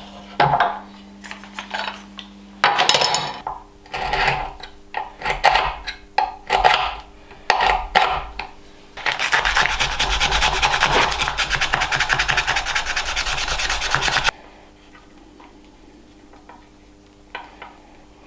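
Irregular rubbing and scraping strokes on wood. About nine seconds in, they give way to a steady, rapid rasping for about five seconds that cuts off suddenly.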